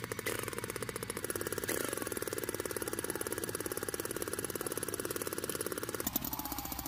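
Homemade remote-control model tractor running with a fast, even, chugging clatter of well over ten pulses a second. About six seconds in there is a sharp click, and the running sound turns deeper.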